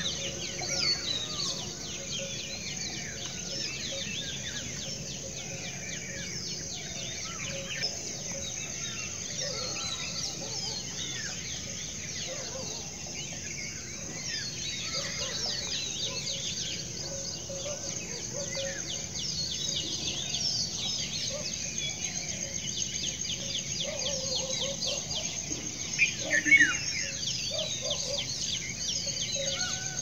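Outdoor bird chorus: many birds chirping and calling over a steady high-pitched buzz, with a few louder calls near the end.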